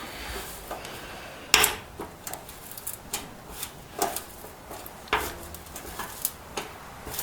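Scattered metal clinks and clanks of hand tools working a nut welded onto a sheared, rusted fender bolt, trying to turn it out. The loudest knock comes about a second and a half in, with others near four and five seconds.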